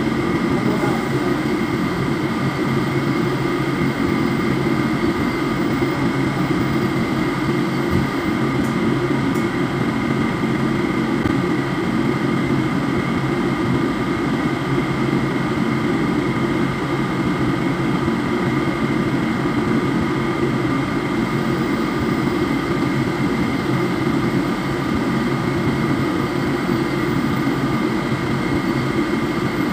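Steady shipboard machinery drone: a low hum with a fixed higher whine over it.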